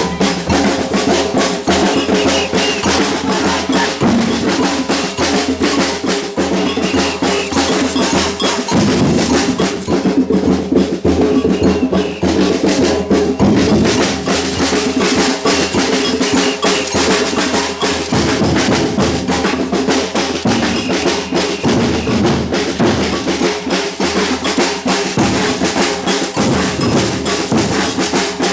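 Batucada drum ensemble playing a continuous samba rhythm, deep surdo bass drums under dense snare-drum strokes, without a break.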